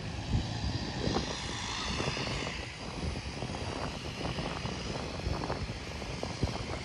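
Turboprop engines of a Dash 8-100 airliner running, with a higher whine that swells about a second in and irregular knocks and rattles throughout.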